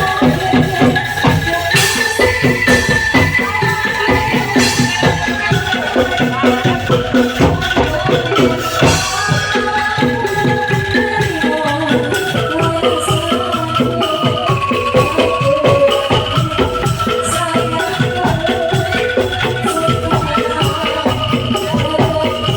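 Bamboo angklung ensemble playing a song melody, the shaken bamboo tubes rattling out each note, over a steady beat.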